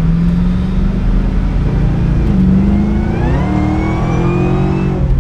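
Cadillac CTS-V engine accelerating hard in a full-throttle test pull: the engine note climbs, dips briefly about two seconds in as a gear changes, then climbs again with a high whine rising alongside, and drops off suddenly at the end.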